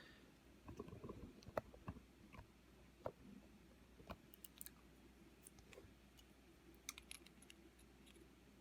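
Faint, scattered sharp clicks of small metal lock parts being handled and tapped together while a milled-open lock core is taken apart, some coming in quick little clusters.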